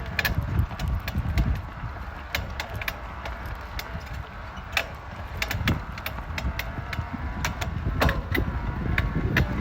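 Specialized Levo electric mountain bike clunking and clanking as it is pedalled: irregular sharp knocks, a few to several a second, over a low rumble. The noise is a failure that the owner is returning the bike over.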